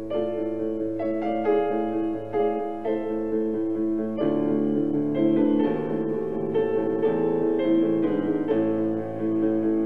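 Background piano music: a slow piece of ringing, sustained notes.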